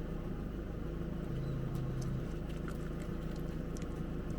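Truck engine running steadily while driving, a low even drone with a few faint light ticks scattered through it.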